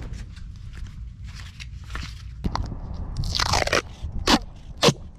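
Duct tape being pulled off the roll and torn: small crackles of handling, then one long rip about three seconds in and two short sharp tears near the end.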